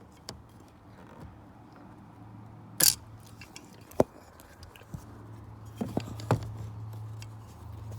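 Hand tool prying and scraping at a plastic clip in a car: a short scrape about three seconds in, and sharp clicks near four and six seconds, over a low steady hum.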